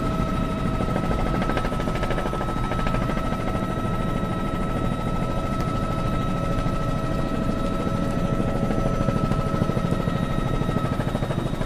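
News helicopter in flight, a steady rapid rotor chop with a constant whine, picked up through the crew's open microphone.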